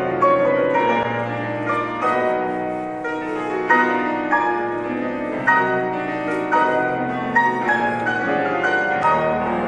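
Two grand pianos, one a Steinway, played together as a piano duo: a flowing passage of many notes and chords.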